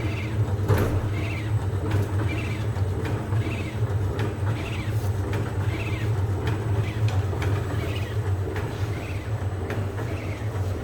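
Bakpia production machine running: a steady motor hum with a short, regular repeating sound about every two-thirds of a second from its working cycle, and occasional clicks.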